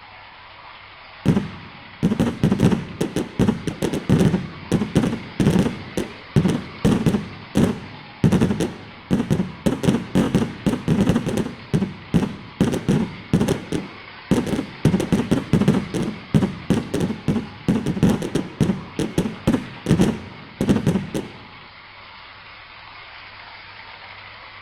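Fireworks going off: a rapid, irregular series of bangs, several a second, starting about a second in and stopping about three seconds before the end, over a steady low hum.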